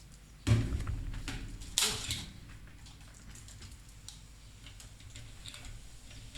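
Handling knocks and clatter: a thump about half a second in, a sharp clatter just before two seconds in, then faint scattered clicks.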